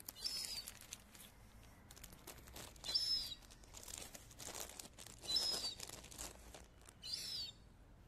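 Gull giving four short, high, thin calls with a falling pitch, about two seconds apart, among scattered light clicks and rustles.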